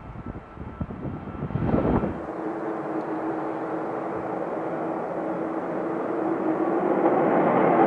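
Airbus A380 jet engines as a low, gusty rumble while it climbs away. About two seconds in this cuts to an Avro Vulcan taking off at full power: its four Olympus turbojets run as a dense rushing noise with a steady howling tone on top, growing louder toward the end.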